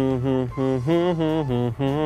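A man humming a song's melody in a run of short held notes that step up and down in pitch.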